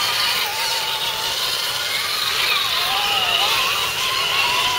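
Electric motors and gear drives of several RC scale crawler trucks whining, the pitch rising and falling with throttle as they drive through a muddy water crossing.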